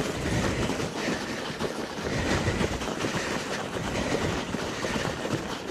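A Crust Evasion bicycle rolling over snow: tyres crunching and the bike rattling over the bumps, an irregular, crackly noise.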